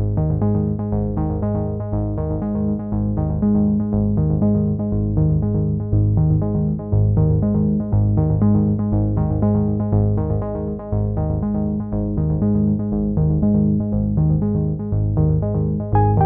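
Background music with a steady, repeating pattern of notes.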